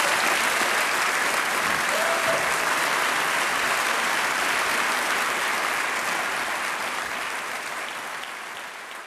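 Audience applauding steadily, fading away over the last few seconds.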